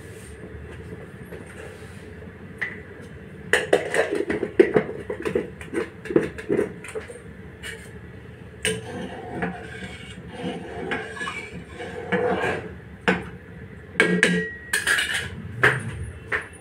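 Kitchen clatter: metal utensils, pots and containers knocked and set down, many separate clinks and knocks starting a few seconds in, over a steady background hiss.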